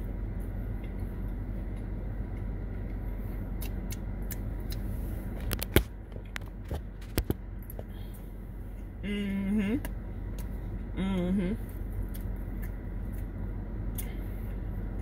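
Eating sounds over a steady low hum in a car cabin: small mouth clicks, a sharp knock about six seconds in and a few clicks a second later as a hand handles the camera, then two short hummed "mmm"s of enjoyment, the second rising at its end.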